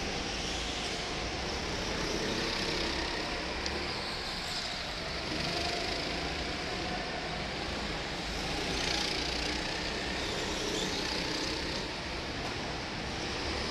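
Go-kart engines running steadily in a large indoor karting hall, with a continuous drone and no breaks.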